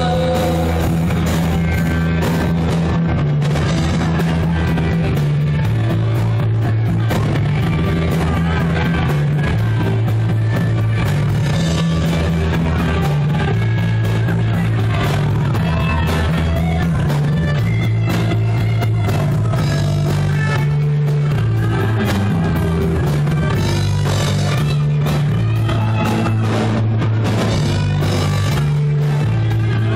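Live rock band playing loud and steady: electric guitar, bass line and drum kit through the PA, recorded from the audience in the hall.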